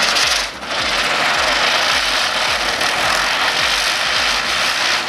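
A Sri Kaliswari ground chakkar (ground spinner firework) spinning on the ground, with a loud, steady hiss from its spark jet. The hiss dips briefly about half a second in, then runs on evenly.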